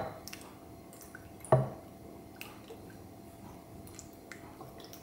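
Thick chili-and-soy seasoning sauce pouring from a bowl onto stacked perilla leaves in a glass container, with soft wet splats and drips. A single thump about a second and a half in.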